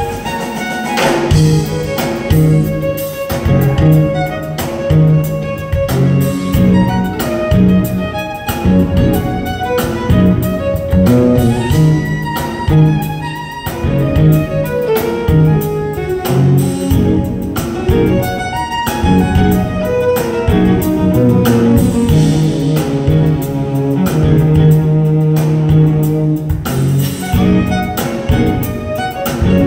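A fiddle playing a tune with rapid bowed notes, over a string instrument strummed in a steady rhythm.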